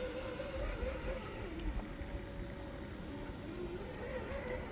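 Electric motor and gearbox of a 1/10-scale RC crawler whining at a wavering pitch that rises and falls with the throttle, over a low rumbling noise.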